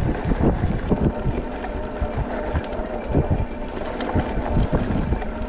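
Wind buffeting the microphone of an e-bike rider on the move, a steady low rumble with scattered knocks and rattles from the bike.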